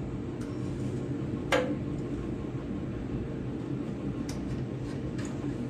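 A sharp metallic clink about a second and a half in, then a few lighter clicks, from tools and parts being handled while the belt goes back onto the generator-starter pulley, over a steady mechanical hum.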